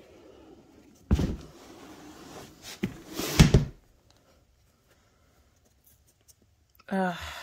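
Close handling noise: a thump with rustling about a second in, then a louder thump and scrape about three and a half seconds in, followed by a few seconds of quiet.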